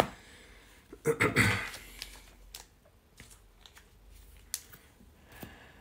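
Trading cards being handled on a table: a few light clicks and taps as cards are set down and sorted.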